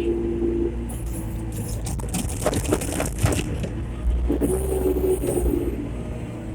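Skid steer engine running steadily while its bucket works a load of cedar chips, with a stretch of scraping and crackling about two seconds in.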